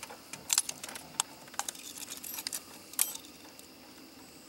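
Scattered light clicks and small metallic rattles of gear being handled, with a sharper click about three seconds in.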